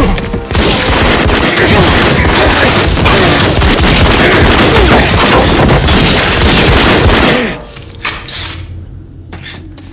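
Heavy, sustained rapid gunfire, shots running together into a dense barrage. It stops abruptly about seven and a half seconds in, leaving only a few scattered knocks.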